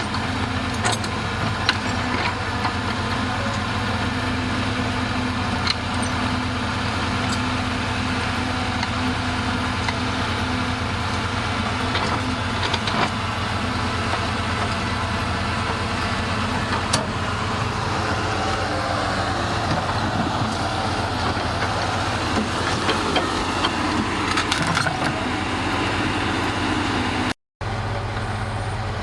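Heavy diesel engine idling steadily, with scattered sharp metal clinks and knocks over it; the sound cuts out for a moment near the end.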